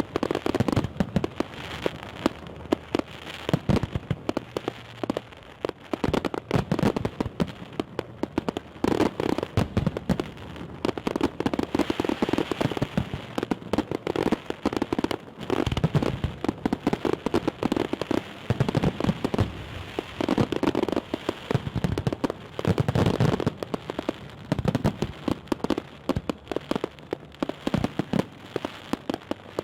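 Fireworks salute going off in a continuous barrage of bangs and crackling pops, many each second and never pausing.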